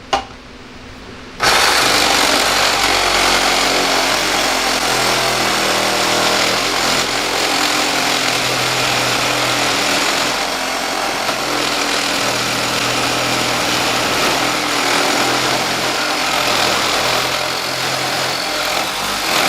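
Makita 12-volt max CXT cordless reciprocating saw cutting through 10-gauge aluminum angle. It starts about a second and a half in and runs steadily through the cut.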